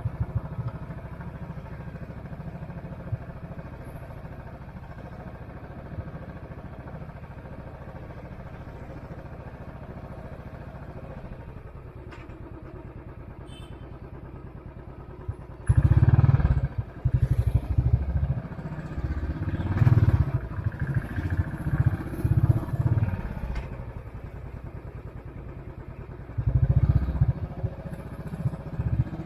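Royal Enfield Classic 500's single-cylinder engine running at low speed with a steady low exhaust beat. About halfway through it suddenly gets much louder as the bike is accelerated, eases off, and picks up again near the end.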